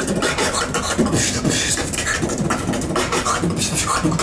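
Solo human beatboxing freestyle: a fast, dense rhythm of vocal kick-drum thumps, snare-like clicks and hissing hi-hat sounds made with the mouth.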